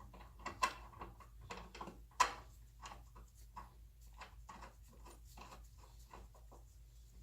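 Light, irregular clicking and rubbing of a metal fuel filter and its mounting bracket being handled and fitted together, with a sharper click about two seconds in.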